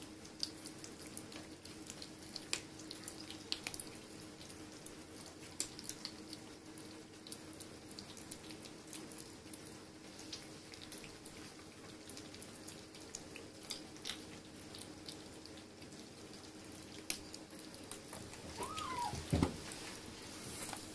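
A litter of kittens eating wet cat food from plates: faint wet smacking and chewing, with many small scattered clicks, over a faint steady hum. A short falling squeal near the end.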